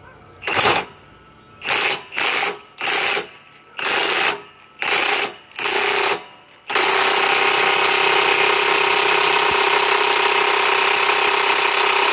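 Milwaukee M18 Fuel 2766-20 half-inch impact wrench set to speed 2, driving a 1 1/2-inch nut tight. The trigger is pulled in about seven short hammering bursts, then held so the anvil hammers without a break for the second half.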